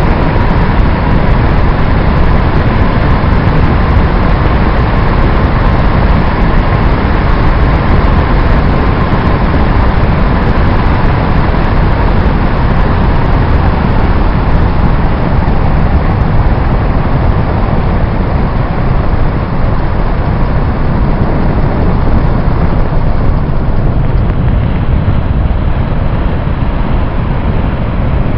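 Wind rushing hard over a GoPro microphone on a biplane in flight, mixed with the steady drone of the biplane's engine. A faint steady whine sits in the first half.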